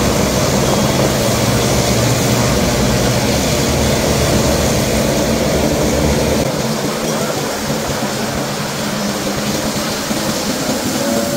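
Twin turboprop aircraft engines and propellers running at high power, a loud steady drone with a deep hum beneath it that eases a little about halfway through.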